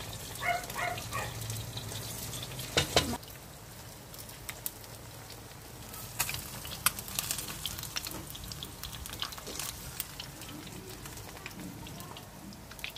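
Catfish pieces frying in hot oil in a pan: a steady sizzle with scattered sharp pops and crackles. A short clatter about three seconds in.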